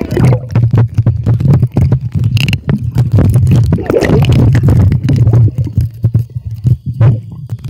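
Muffled underwater sound picked up by a camera sealed in a homemade waterproof housing: a steady low rumble of moving water and bubbles, with frequent knocks and clicks of handling against the case.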